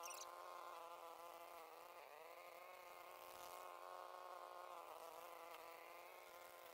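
Deer fly buzzing close by: a faint, steady hum whose pitch dips briefly twice as it moves, about two and five seconds in.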